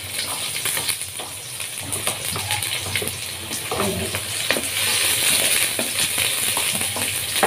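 Garlic and sliced onions sizzling in hot oil in a wok. The sizzle grows louder about halfway through as the onions land in the oil, and a wooden spatula stirs them near the end.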